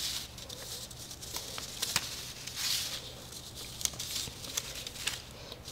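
Paper rustling softly as a narrow strip of paper is threaded over and under the slits of a paper sheet, with a few faint clicks.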